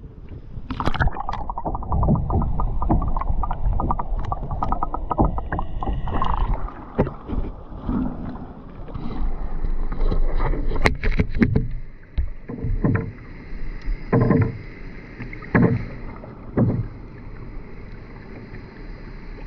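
Kayak paddling: a paddle dipping and pulling through the water, with water sloshing against the kayak's hull. Later, four separate paddle strokes stand out.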